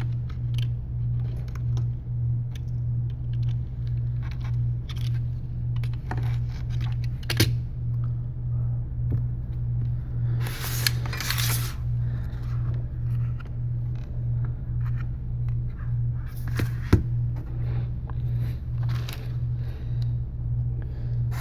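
Small clicks, taps and scrapes of hands and tools working on an opened iPad mini 3 and its adhesive, with a longer scraping rustle between about ten and twelve seconds in. Under it runs a steady low hum that throbs about twice a second.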